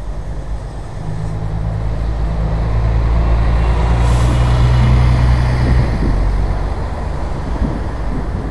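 A motor vehicle's engine running close by with a steady low drone that swells toward the middle and drops off about six seconds in. A brief hiss sounds about four seconds in.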